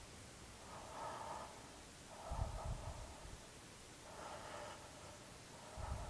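A person breathing slowly and heavily close to the microphone: two airy in-breaths alternating with two out-breaths, each out-breath buffeting the mic with a low rumble.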